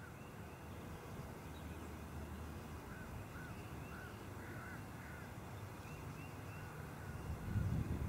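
Faint outdoor ambience with a bird calling in short repeated notes, a cluster of them a few seconds in and a few more later. A low rumble runs beneath and swells near the end.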